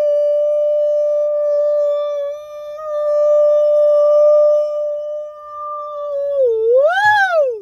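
A man's voice holding one long, steady high note, then near the end dipping, swooping up and falling away.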